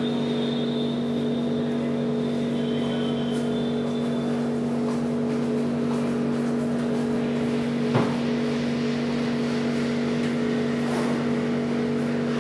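A steady low drone that holds one pitch throughout, with a single knock about eight seconds in.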